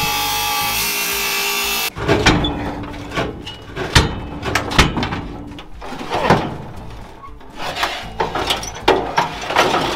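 Angle grinder cutting through steel welds on an old car's body, stopping abruptly about two seconds in; then a run of sharp metal clanks and knocks as the loosened parts are pried and worked free.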